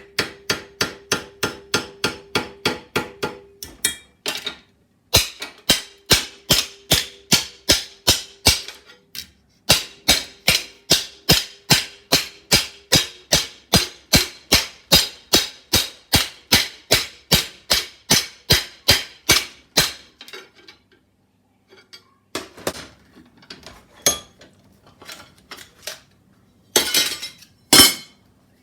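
Hammer blows on a thin strip of sheet metal cut from a computer case, bending it into a flanged edge: quick, even taps about three a second, in runs with short pauses, the metal ringing with each blow. The steady hammering stops about two-thirds of the way through, followed by a few scattered knocks, with two loud clanks near the end.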